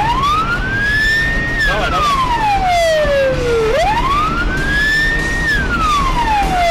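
Police car siren wailing: the pitch rises over about a second and a half, then falls more slowly, repeating about every four seconds, with engine and road noise underneath.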